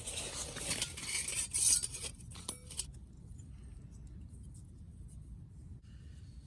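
Rustling and clinking of camp cookware and utensils being handled for about three seconds, with a few sharp clicks at the end, then only a low outdoor rumble.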